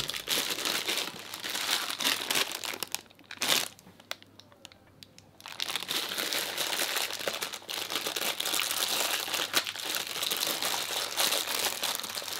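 Thin clear plastic produce bag crinkling and rustling as radishes are worked out of it by hand, with a short pause about four seconds in.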